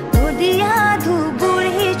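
Background song: a singing voice over a beat with steady instrument chords, and a deep bass note sliding down near the start.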